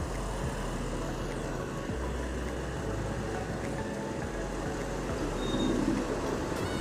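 Steady road-traffic noise of vehicle engines and tyres, heard from a motorcycle riding in traffic.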